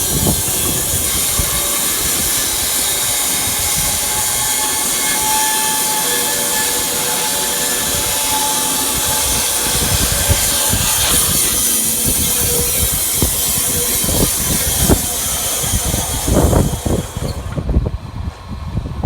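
Wood-Mizer LT15 Wide bandsaw mill sawing through an elm burl, a loud, steady, hissing cutting noise with the mill running. It stops suddenly near the end, leaving a few low knocks.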